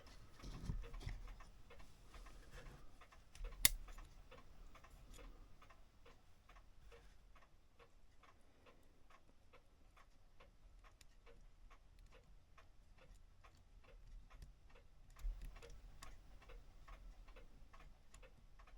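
Steady, even ticking of a running mechanical clock, with one sharp click about four seconds in and a low bump near the end.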